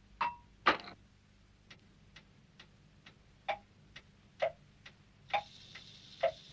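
Clock ticking steadily, about two ticks a second, the first two ticks louder than the rest. A faint hiss comes in near the end.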